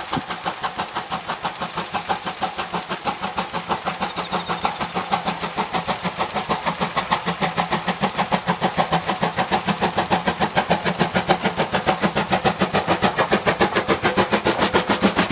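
JNR Class C12 steam tank locomotive C12 66 working under steam at the head of its train, its exhaust beating in a rapid, even chuff-chuff rhythm that grows louder as it approaches.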